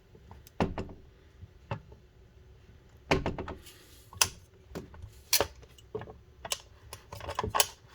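Clicks and knocks from a Master Lock Bluetooth portable lock box being handled after it has been unlocked: about a dozen sharp, irregular clicks, with a heavier clatter about three seconds in.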